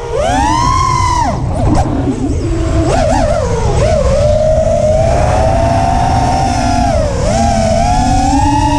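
Whine of an FPV racing quadcopter's four Cobra 2205 2300 kV brushless motors spinning 5-inch three-blade props, heard onboard, its pitch swooping up and down with the throttle over a low rush of air. It dips and rises sharply at the start, wavers between about one and four seconds in, then holds a steady whine that dips briefly near the end and climbs again.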